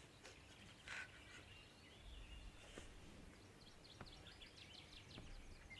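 Near silence: faint room tone, with a few faint short high chirps in the second half.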